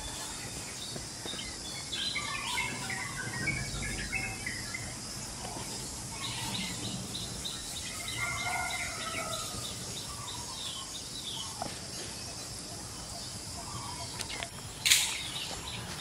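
Outdoor woodland ambience: scattered bird chirps over a steady high insect hiss, with one short loud rustle about a second before the end.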